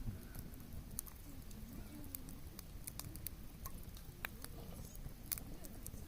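Campfire of burning wood crackling, with sharp pops scattered irregularly through it; the loudest pops come a little after four and five seconds in.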